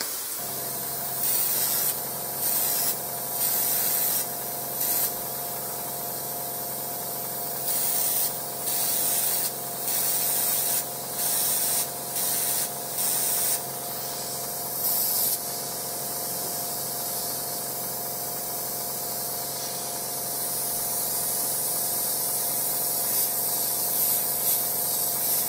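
Airbrush spraying thinned paint onto paper in test passes while its settings are being dialled in on a new brush. A steady hiss of air carries a string of short louder spurts over the first half. The spraying then runs continuously and grows slightly louder near the end, over a steady low hum.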